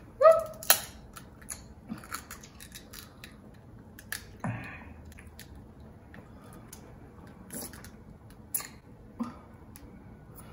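Prawn and crab shells cracking and clicking as they are peeled apart by hand, in scattered sharp snaps, with chewing. A brief voiced sound comes just after the start.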